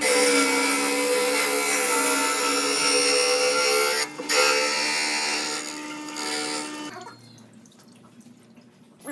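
Planer-knife grinding machine running wet: its cup grinding wheel grinds along a clamped planer blade under coolant, a steady motor hum under a high grinding and spraying hiss. It breaks off for a moment about four seconds in and dies away to a faint hum about seven seconds in.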